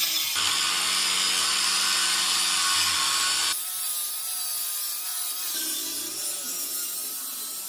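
A power tool cutting into material with a steady, harsh hiss. The sound changes abruptly about a third of a second in and again about three and a half seconds in.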